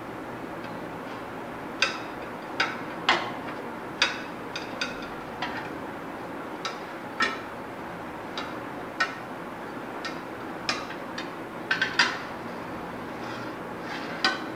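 Glass mixing bowl clinking and knocking against the aluminium plate under it while cookie dough is kneaded and pressed by hand: irregular sharp clicks, some in quick clusters, over a steady background hiss.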